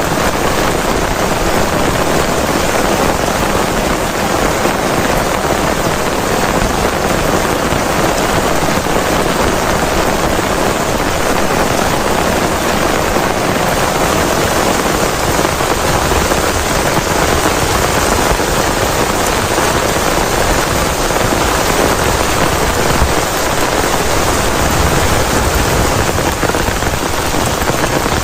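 Heavy rain falling steadily and evenly, a dense unbroken patter with no change in strength.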